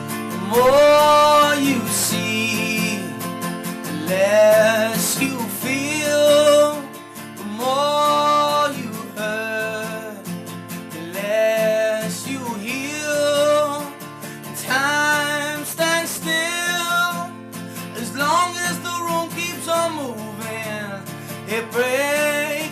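A song sung over strummed acoustic guitar, in phrases of a second or two with short breaks between them.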